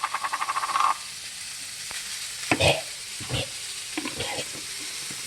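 Burger patties sizzling steadily in a frying skillet, with a quick rattling run in the first second and a few short knocks around the middle.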